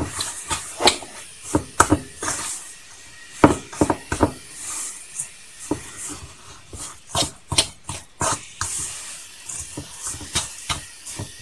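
A spoon stirring a thick courgette and cocoa cake batter in a bowl, with irregular clicks and knocks against the bowl's side.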